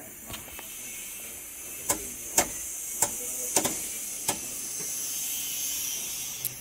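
Several sharp clicks and knocks at uneven intervals, from parts of a backhoe loader's cab being handled, over a steady high hiss.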